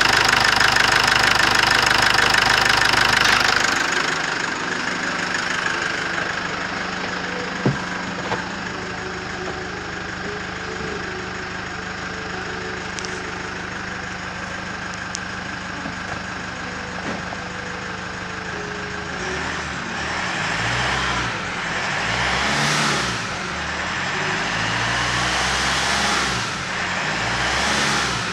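2007 Jeep Wrangler's 2.8-litre turbo-diesel engine running: loud at idle under the open bonnet, then heard more quietly from the cab. A sharp click comes about 8 s in. Over the last several seconds it is revved four or five times, rising to about 2000 rpm and falling back each time.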